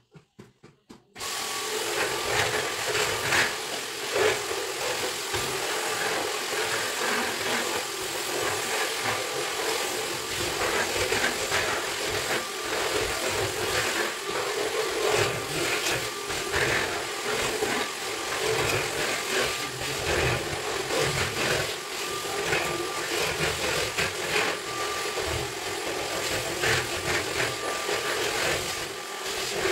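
Cordless stick vacuum cleaner switched on about a second in, then running steadily. Its level rises and falls as the narrow nozzle is worked over the concrete stair steps.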